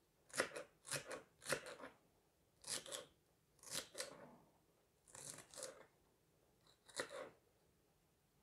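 Chef's knife cutting through celery stalks onto a plastic cutting board: crisp crunching cuts, about two a second at first, then slower and more spread out, some eight in all.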